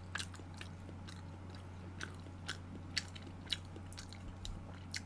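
A person eating close to the microphone: quiet chewing with a dozen or so soft, scattered clicks from the mouth and from chopsticks in the food pan, over a steady low hum.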